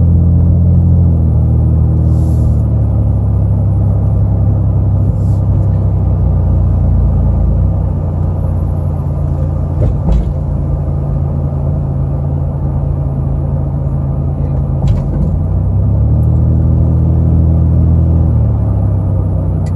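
Car engine and road rumble heard from inside the moving vehicle, the engine note shifting in pitch a few times as it speeds up and slows down, with a few light clicks.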